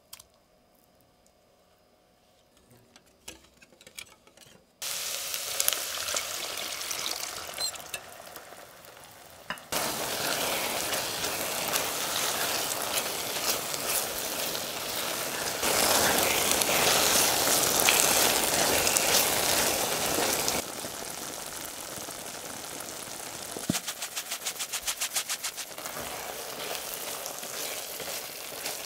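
Beef strips and bell peppers sizzling in a thick soy sauce glaze in a pan while a silicone spatula stirs them. After a quiet start with a few small clicks, the sizzling comes in several cut sections, loudest in the middle, with a run of quick ticks from the spatula near the end.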